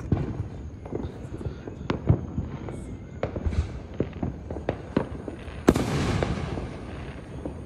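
Fireworks going off down the street: a scatter of sharp pops and cracks. About six seconds in comes a loud hissing crackle that fades over a second or so.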